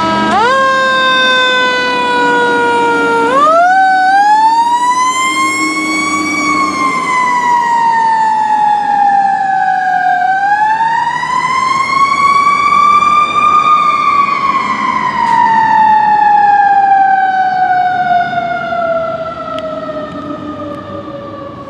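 Fire engine siren on a 2001 Seagrave Marauder pumper responding to a call: a few quick upward chirps at the start, then a wail that rises and falls slowly twice and winds down in a long fall near the end, fading as the engine pulls away.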